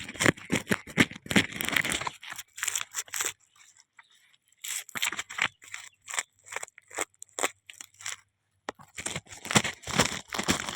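Irregular crunching and rustling: a dense run of short scrapes and crackles that thins out about four seconds in and again around eight seconds before picking back up.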